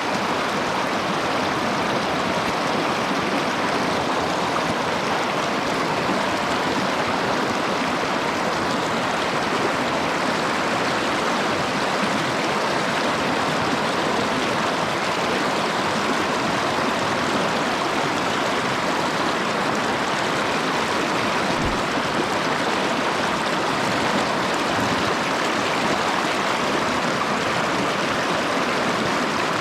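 Steady rushing of a shallow mountain stream running over rocks. A single brief low thump comes about three quarters of the way through.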